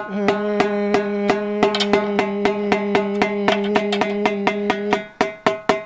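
Snare drum's bottom (snare-side) head being tapped rapidly, about five taps a second, each tap ringing at the head's pitch. A steady sung note is held alongside the taps until about five seconds in, as a pitch reference while the head is brought up toward an A.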